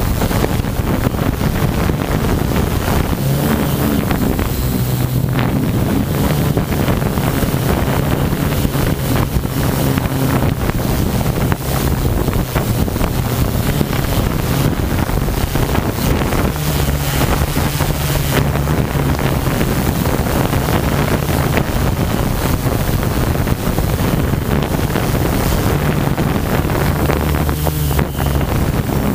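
Mikrokopter multirotor's electric motors and propellers running with a steady drone whose pitch shifts a few times as the throttle changes, buried in heavy wind noise on the onboard camera's microphone.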